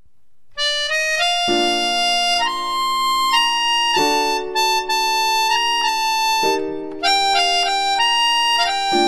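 Background music: a melody of held notes over sustained chords that change about every two and a half seconds, starting about half a second in.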